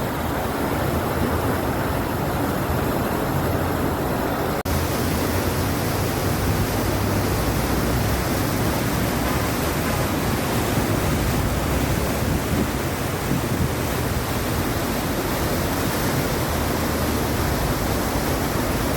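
A steady rushing noise, even and unbroken, with a split-second dropout about five seconds in.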